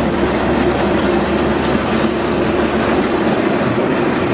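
A ride-on miniature train, a small live-steam locomotive pulling loaded riding cars, rolling past on its track, with a steady sound of wheels running on the rails.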